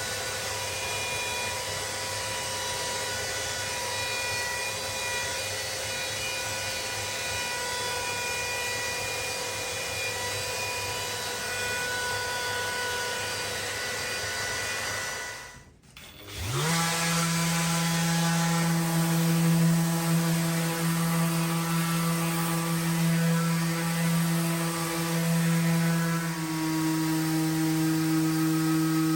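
Handheld electric woodworking power tool, a router or sander, running steadily on a wooden board. About halfway through the sound drops out, then a tool's motor spins up with a rising whine and settles into a steady hum, which steps slightly lower in pitch near the end.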